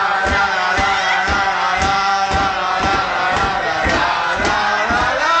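A crowd of people singing and chanting loudly together, with many voices holding notes at once over a rhythmic beat.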